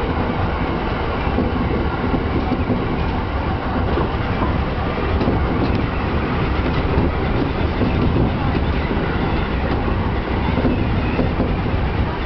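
E231-series electric commuter train running, heard from inside the car: a steady rumble of wheels on rail, with a couple of faint clicks about five seconds in.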